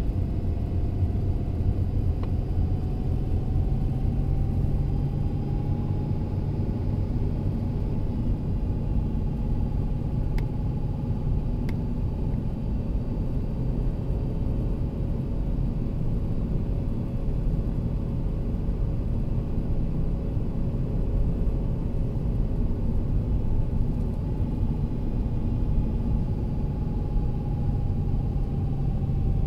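Car driving up a mountain road, heard from inside the cabin: a steady low rumble of engine and tyres, with a faint whine that rises a little in the first few seconds and eases back down near the end.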